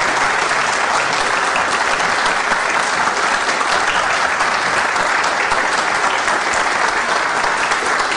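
Audience applauding: many people clapping at once, at an even level.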